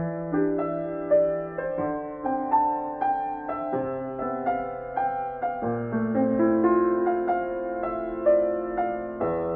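Soft instrumental background music: a melody of short notes over held low notes.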